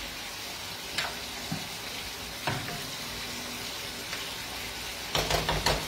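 Gnocchi with porcini and clams sizzling steadily in a frying pan on a gas hob. There are a few light knocks, then a short clatter of utensils near the end.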